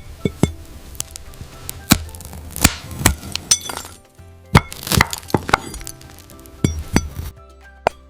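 A knife cutting through glass fruit: a dozen or so sharp, irregularly spaced glassy cracks and clinks, each with a brief ring, over background music.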